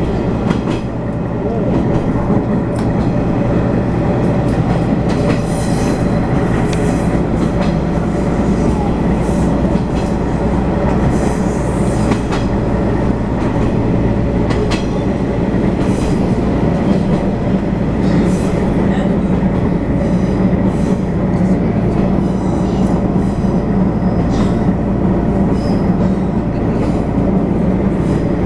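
Diesel railcar running along the line, heard from inside the carriage: a steady engine drone and rumble with wheels clicking over rail joints, and a few brief high wheel squeals.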